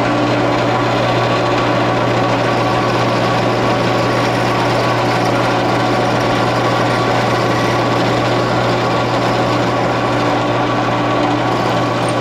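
Benchtop drill press running with a steady hum as a small pilot hole is drilled in thin-walled rectangular steel tubing, the bit wetted with cutting oil.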